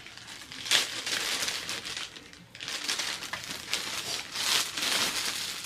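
Packaging crinkling and crackling in irregular bursts as it is handled and pulled open, with a sharp crackle about a second in.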